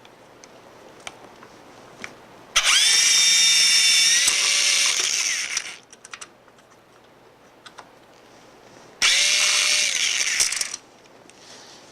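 Power drill-driver backing out the diverter valve's mounting screw, in two runs: one of about three seconds and a shorter one of under two seconds. Each run starts with a motor whine that rises as it spins up.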